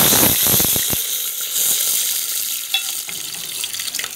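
Curry leaves and spices tossed into hot oil in a pot: a sudden loud sizzle with crackling that fades over the next few seconds to a steadier, quieter sizzle.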